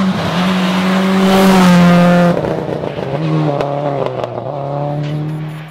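Rally car engine at full throttle, growing louder as the car closes in, then cut off sharply about two seconds in. A second rally car's engine follows at a steady, lower pitch, with a few sharp cracks.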